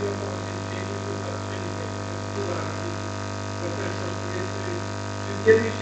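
Steady electrical mains hum from the hall's sound system, with faint, indistinct speech beneath it and a louder word near the end.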